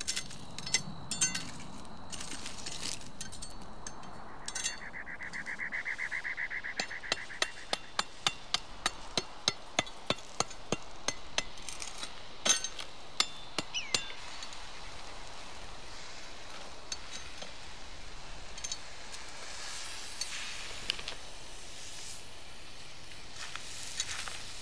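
Large knife blade knocking on a hard baked salt crust over a fish, a run of regular taps about three a second in the middle with scattered knocks and clinks around it, cracking the crust open.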